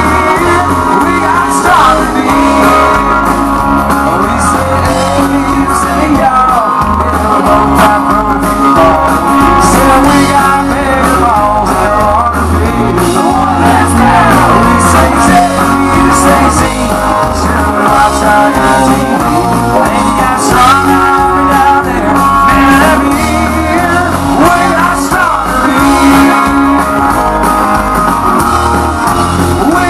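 Country-rock band playing live and loud: drums, electric and acoustic guitars, with singing.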